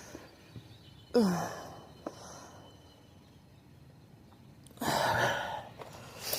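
A woman's heavy sighs: a short voiced sigh falling in pitch about a second in, then a longer breathy exhale about five seconds in, and a third falling sigh at the end. They are sighs of effort from someone working through bad hip and leg pain.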